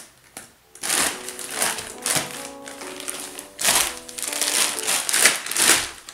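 Plastic bag crinkling and rustling as it is pulled off a block of clay, in uneven bursts, over soft piano music.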